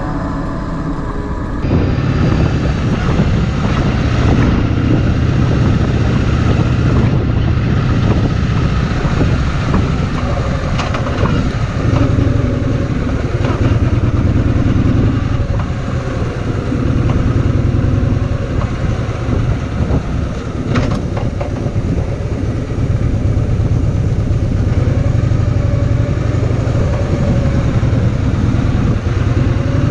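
Kawasaki VN2000's V-twin engine running steadily as the motorcycle rides along, coming in abruptly about two seconds in.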